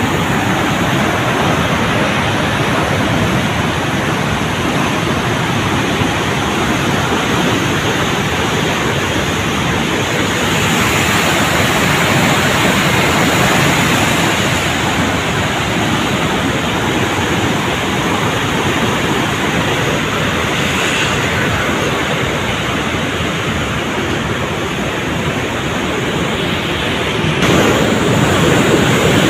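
Indus River floodwater rushing and churning through a barrage, a loud, steady wash of fast-flowing water at high flood. It grows somewhat louder near the end.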